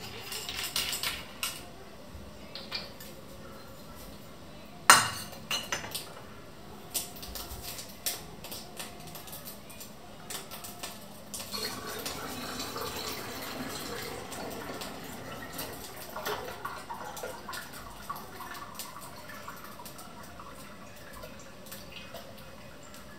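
Glass and metal clinking as a bottle is handled and a funnel is set in its neck, with one sharp loud knock about five seconds in. Around the middle, liquid is poured through the funnel into the glass bottle for a few seconds, and more light clinks follow.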